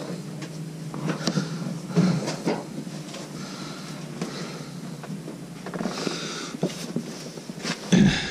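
Handling noise from stored goods being moved: rustling and knocks of boxes and a plastic bin being shifted and set down. One louder knock comes about two seconds in and another near the end.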